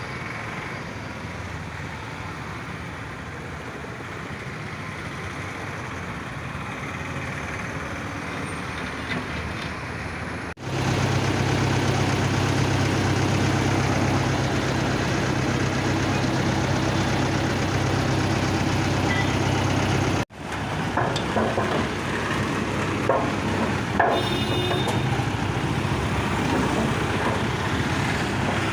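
Road roller's diesel engine running steadily. About ten seconds in it gets louder, with a strong low hum, and the sound breaks off abruptly twice.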